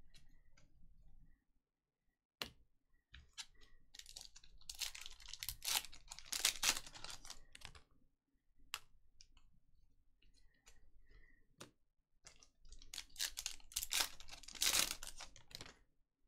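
Trading cards being handled: crisp, rapid clicking and rustling of cards flipped and shuffled through, in two bursts with a few single clicks between.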